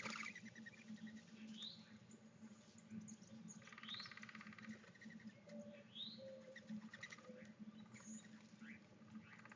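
Faint chirping of small birds: a few short rising chirps and a brief buzzy trill, over a steady low hum. A sharp click right at the start.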